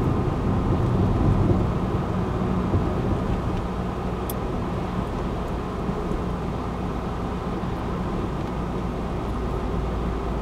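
Car driving at a steady highway speed, heard from inside the cabin: a steady low road and engine noise.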